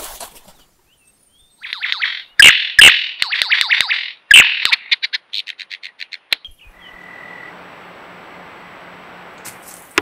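Sulphur-crested cockatoos screeching: several loud, harsh calls over about three seconds, followed by a quick run of short sharp notes. After that only a steady low hiss with a faint high tone.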